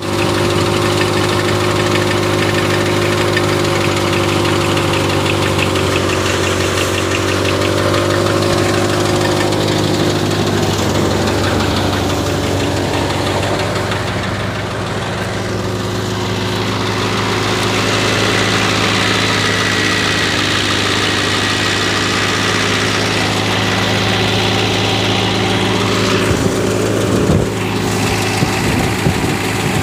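VST Shakti MT 270 Viraat tractor's diesel engine running steadily while driving a multi-crop thresher threshing wheat, an even noise laid over the engine's hum. A few sharp clicks come near the end.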